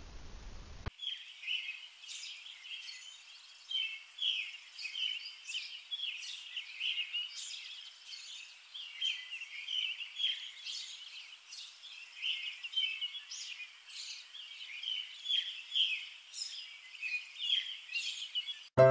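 Small songbirds chirping and singing, a steady run of many short, quick calls one after another; the birdsong cuts off suddenly near the end.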